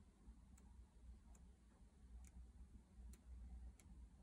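Very faint paper ticks, roughly one or two a second at uneven spacing, as the pages of a large hardcover book are flicked through by hand.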